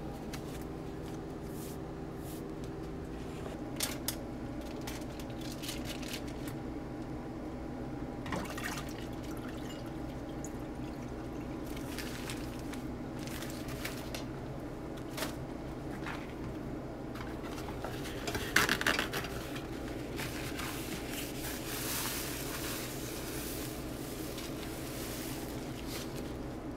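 Steady low hum with scattered light clicks and knocks, and a short louder clatter a little past the middle.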